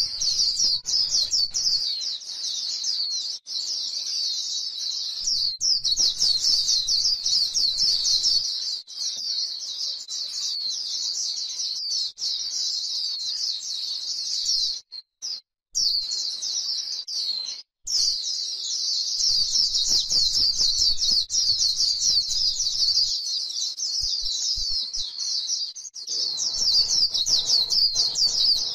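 White-eye singing a continuous, rapid, high twittering warble that breaks off briefly twice a little past halfway.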